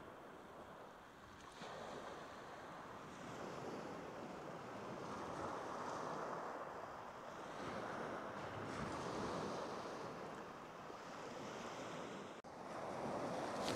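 Surf breaking and washing up the shingle beach, swelling and easing every few seconds.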